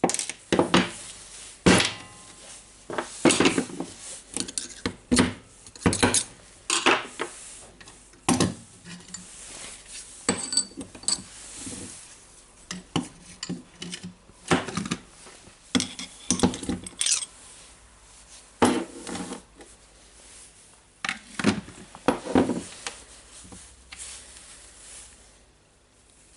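Metal parts of a rotary hammer drill being handled and set down on a workbench, clinking and knocking irregularly, some with a short metallic ring.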